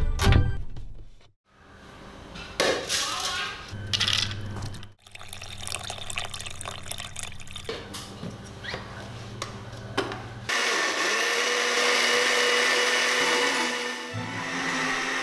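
Philips countertop blender grinding rice with water into batter, its motor running steadily for a few seconds from about ten seconds in. A few knocks come before it starts.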